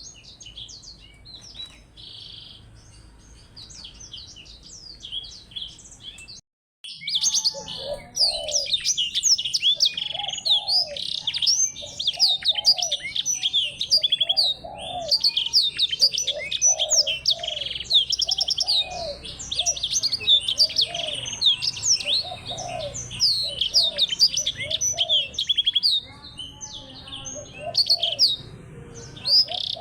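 Small songbirds singing a rapid, dense twittering song of high notes, with a lower series of notes repeating underneath. The song is quieter at first, drops out briefly about six seconds in, then comes back much louder and keeps going continuously.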